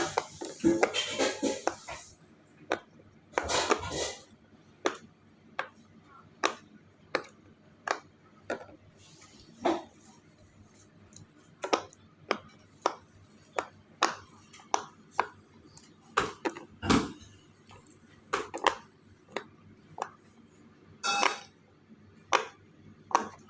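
Irregular sharp clicks and taps of small hard objects, one every half second to a second, with short rattling clusters near the start and again about three-quarters of the way through.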